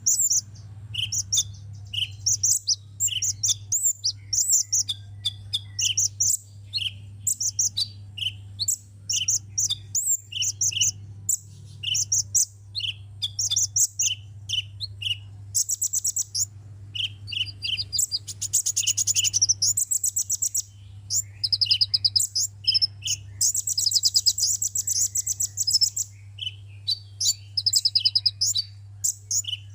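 Sunbird singing: a rapid run of high, sharp chirps and twitters, broken by fast buzzy trills about halfway through and again later, over a steady low hum.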